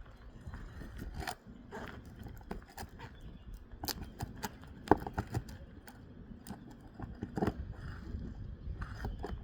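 Irregular scrapes and sharp clicks of roofing nails being worked loose from asphalt shingles, with one louder knock about five seconds in.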